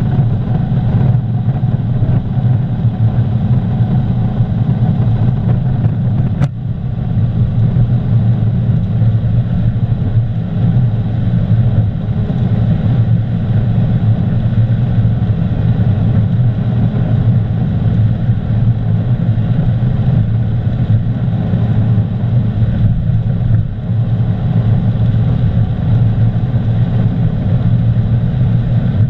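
Cabin sound of a 2015 Honda Civic Type R's 2.0-litre turbocharged four-cylinder held flat out near 7000 rpm in sixth gear at about 280 km/h top speed, a loud steady drone. A single sharp click about six and a half seconds in.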